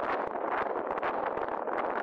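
Steady rush of wind over the microphone.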